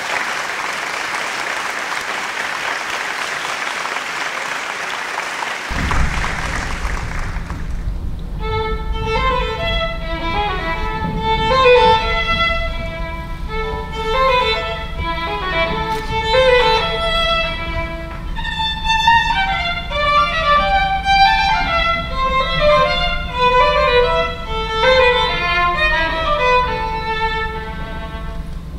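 Applause fading out over the first seven seconds, then a violin begins playing a melody of separate notes about eight seconds in. A steady low hum runs under the playing.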